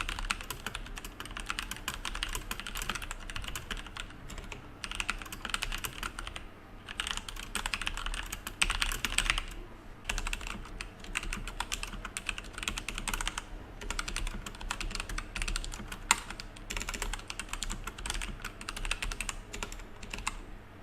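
Continuous typing on a full-size mechanical keyboard with Outemu Brown tactile switches: rapid runs of keystroke clicks. The first half is typed with bare keycaps. After a brief pause about ten seconds in, the typing is done with rubber O-rings fitted under the keycaps to damp the bottom-out.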